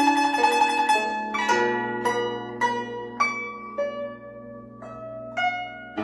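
Guzheng played solo: a quick run of plucked notes, then slower single notes about every half second to second, each left to ring and fade over a sustained low note.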